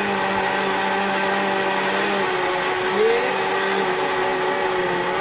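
Electric countertop blender running steadily, churning yogurt, milk, sugar and water into lassi.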